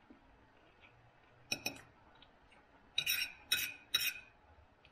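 Knife and fork clinking and scraping on a dinner plate while cutting food. Two light clinks come about a second and a half in, then three sharper scrapes about half a second apart near the end.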